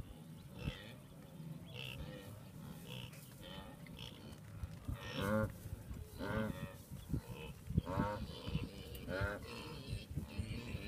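Wildebeest calling: a series of about five short, nasal, moo-like grunts from the herd, each under half a second and coming roughly once a second, in the second half.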